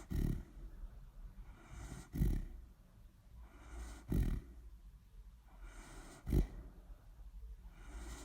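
A sleeping dog snoring: four low snores, about one every two seconds, with softer breathing between them.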